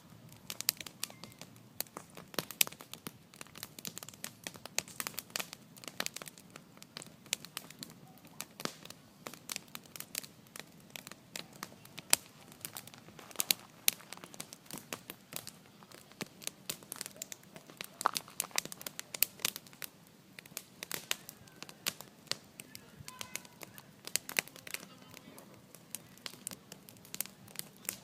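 Wood bonfire crackling, with dense, irregular pops and snaps and an occasional louder crack.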